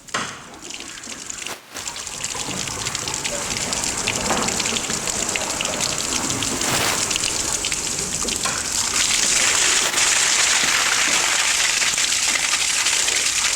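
Toilet flushing: water rushing steadily, building up over the first couple of seconds and holding at full flow.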